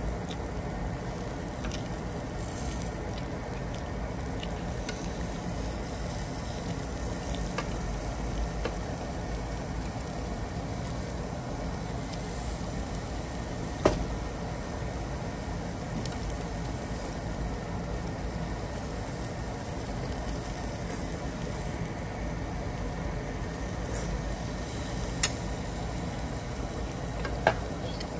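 Food sizzling on a tabletop barbecue grill, a steady hiss, with a few sharp clicks, the loudest about halfway through.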